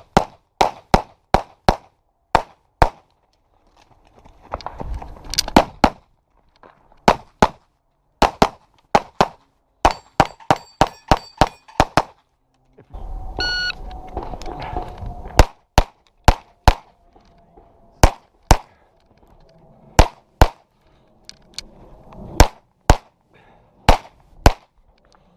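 Handgun shots fired rapidly in pairs and short strings during a practical pistol stage, with the ringing clang of steel targets being hit in places and wind rumbling on the microphone between strings.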